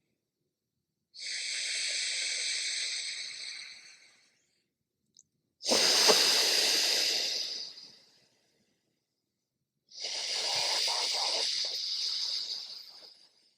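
Alternate nostril breathing: three slow, long, airy breaths drawn through one nostril at a time, each lasting about three seconds, with silent pauses between them. The middle breath starts sharply and is the loudest.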